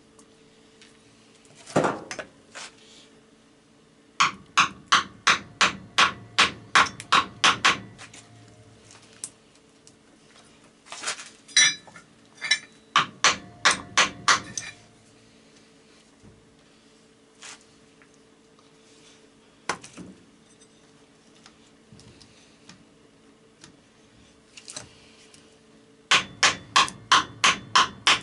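Hammer tapping on the cylinder barrel of a seized 1984 Honda ATC 200ES engine, in quick runs of about three strikes a second with pauses and single knocks between, driving the jug down to work loose a piston stuck by water seizure.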